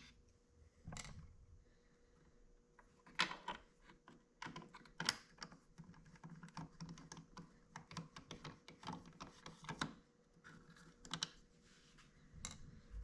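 Faint, scattered light clicks and taps of a small Torx wrench and hard plastic parts being worked on a car's side-mirror housing, as its T8 Torx screws are taken out.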